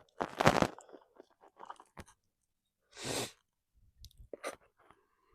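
Hunting gear being handled close to the microphone: two rustling, scraping bursts and a few sharp clicks.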